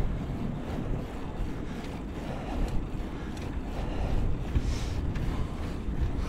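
Wind blowing across the camera microphone, a steady low rumbling noise.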